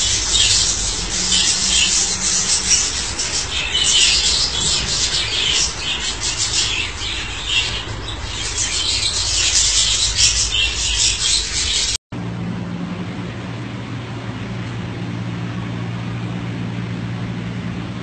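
Budgerigar chattering and warbling, a fast run of high chirps, clicks and squeaks. About twelve seconds in it cuts off abruptly, leaving a steady low hum.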